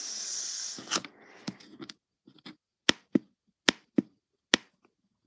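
Handling noise on a handheld phone: a rustle for about a second, then about eight sharp clicks or taps at uneven intervals, the loudest in the second half.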